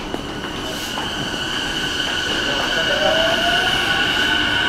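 JR East E233-series electric train pulling out of the station: a steady high-pitched whine with a lower motor tone that rises in pitch from about halfway through, growing louder as the train gathers speed.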